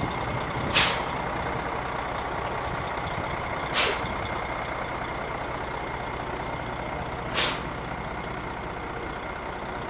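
Semi truck's air brakes giving three short, sharp hisses of air about three seconds apart, over the steady idle of its diesel engine. The brakes are being set and released to find which one is sticking.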